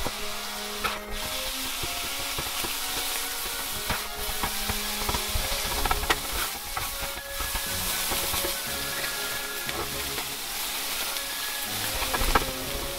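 Diced chicken sizzling in fat on an electric hot plate, with a nylon spatula stirring it and now and then clicking against the griddle surface. Held notes of background music run underneath.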